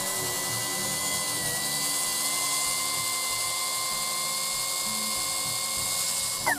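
Milwaukee plunge track saw running along its guide rail and cutting through a birdseye maple board, a steady motor whine under the noise of the blade in the wood. Near the end the trigger is let go and the motor winds down with a falling pitch.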